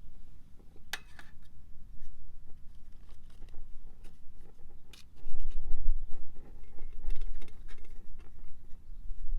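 Scattered small clicks and scraping sounds, with two sharp clicks about a second in and about five seconds in. From about five seconds in, a low, gusting rumble of wind on the microphone sets in.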